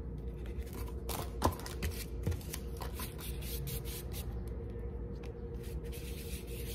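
Foam paintbrush dabbing in a pot of paint and scraping across cardboard in quick, repeated strokes, with a couple of sharper taps. A steady low hum underneath.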